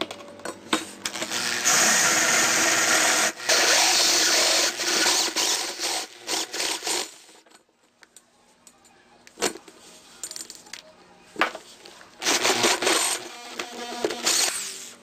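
Handheld power drill boring through the steel wall of an empty propane tank, the bit oiled, grinding through the metal in two long spells, one in the first half and another near the end, with a few sharp clicks in the quiet stretch between.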